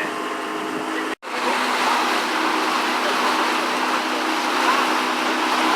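Tour boat's motor running steadily, with water rushing past the hull. The sound cuts out for an instant about a second in, then carries on unchanged.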